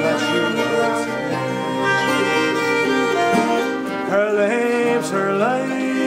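Acoustic string band playing an instrumental passage: a fiddle carries the melody with sliding notes, over strummed mandolin and guitar.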